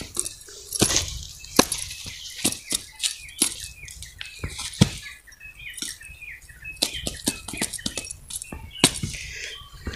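Irregular wet slaps and pats of bare hands shaping cow dung cakes on the ground, with small birds chirping.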